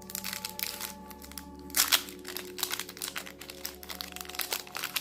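Plastic trading-card booster pack wrapper crinkling and crackling as it is handled and torn open, with one sharp loud crackle just before two seconds in. Soft background music underneath.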